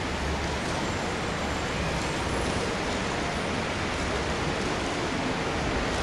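Steady, even hiss with a low hum underneath, unchanging throughout: background noise of the recording or room, with no speech.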